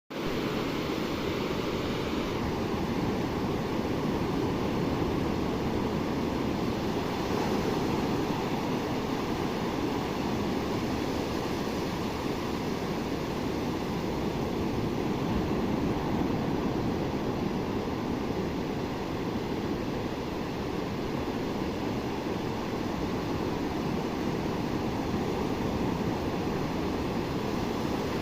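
Sea surf breaking on a beach: a steady rush of waves.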